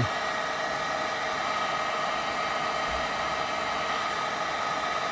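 Hot-air blower running steadily: a rush of air with a steady motor whine, blowing heat onto the phone's screen edge to soften the adhesive.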